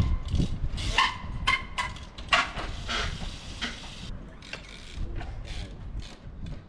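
Trials bike being hopped on a brick wall: a series of sharp knocks and thuds as the tyres land, with a few short squeals in the first half. Wind rumbles on the microphone throughout.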